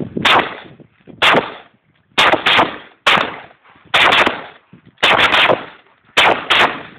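An M16 rifle firing 5.56 mm rounds in single semi-automatic shots, about one every second. Some shots come in quick pairs, and each crack is followed by a ringing echo.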